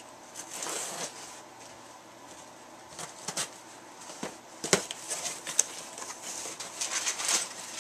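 Cardboard shipping box being opened by hand: packing tape picked at and pulled away, then the flaps folded back, with light rustling and a few sharp knocks, the loudest about two-thirds of the way through.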